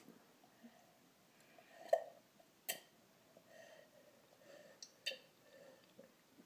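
A toddler sipping and gulping water from a drinking glass, with soft breathing between swallows. There is a louder gulp about two seconds in, and two sharp clicks, one near three seconds and one near five.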